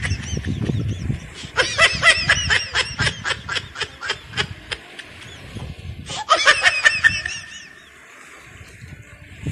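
People laughing in high-pitched, rapidly repeated giggles: a long fit of laughter that trails off, then a shorter burst about six seconds in.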